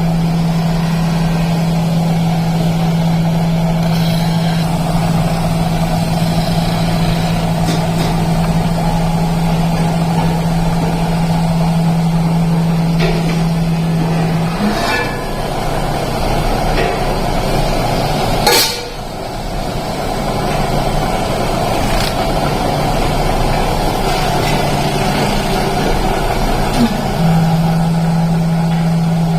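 Factory machinery running with a steady, loud hum. Partway through the hum falls away for a while, then returns. There is one sharp knock in the middle.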